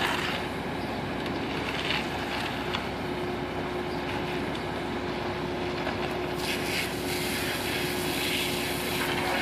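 Concrete truck's engine running steadily, with a constant droning tone.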